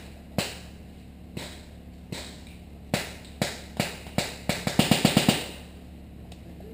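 Air-powered skirmish guns (airsoft or paintball markers) firing: single sharp shots about a second apart that come faster and faster, then a rapid string of about six shots about five seconds in.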